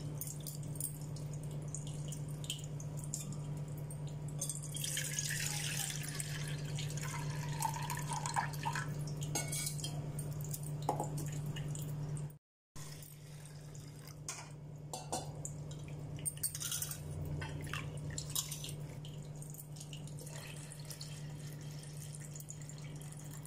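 Split moong dal being washed by hand in water in a stainless steel bowl: water sloshing and dripping, with light clinks against the bowl. Near the end the rinse water is poured off into another steel bowl. A steady low hum runs underneath, and the sound cuts out briefly about halfway.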